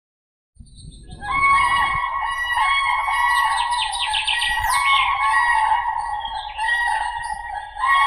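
Common cranes (Grus grus) trumpeting: loud, rolling bugle calls overlapping one another. They start about half a second in, with a quick run of higher chirps near the middle.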